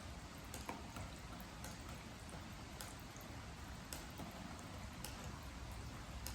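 Rain falling on a wooden deck: a steady hiss of rain with single drops ticking on the boards irregularly, about once a second.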